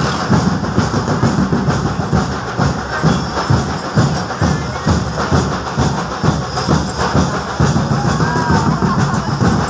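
Loud drumming in a steady rhythm, with heavy bass-drum beats, from the percussion accompanying an elephant procession.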